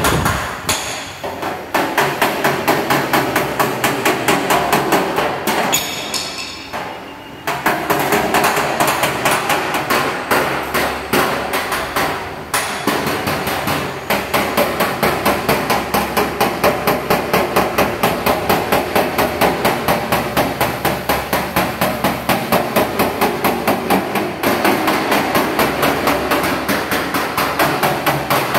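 A body hammer strikes a sheet-metal car panel in quick, even blows, about three a second, with a pause of a second or two about six seconds in. This is panel knocking, hammering the metal back into shape.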